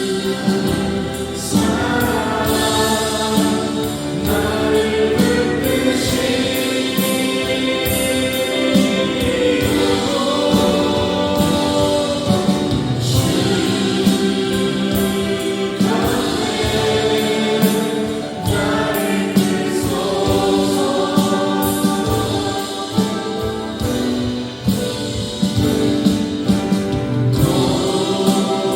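Music with a group of voices singing long held notes over a steady beat.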